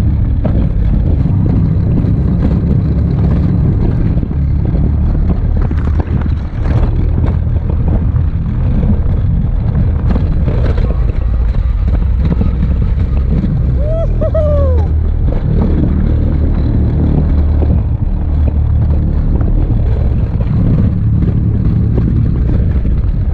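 Alpine coaster sled running fast down its steel rail, its wheels giving a loud, steady rumble with scattered clicks and rattles over the track joints.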